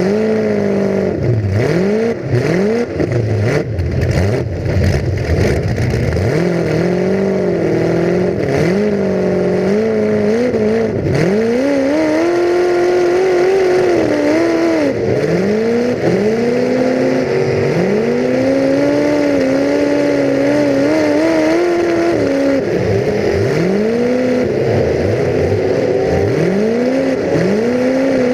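Full-size demolition derby car's engine revving over and over, its pitch climbing and dropping again and again as the throttle is pressed and released, heard from on board the car. A series of sharp knocks and bangs comes in the first few seconds.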